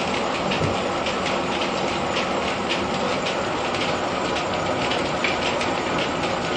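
Grain-mill threshing machinery running steadily, a continuous rumble with a fast, uneven clatter of clacks, several a second.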